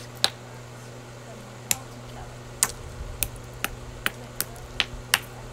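Stones clacking as they are knocked together by hand: about ten sharp, irregular knocks, closer together in the second half, over a steady low hum.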